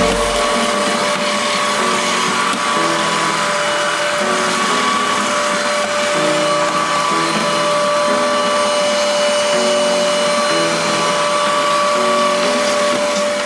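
Adler AD 7044 cordless stick vacuum cleaner running steadily on wooden stairs, its motor giving an even whine that holds one pitch.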